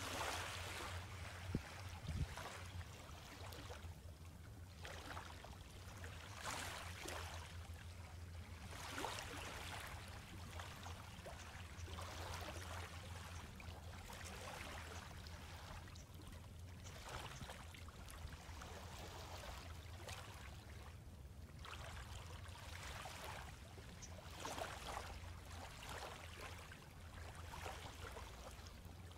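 Small, gentle waves lapping on a sandy beach, a soft wash coming every two seconds or so, over a steady low rumble.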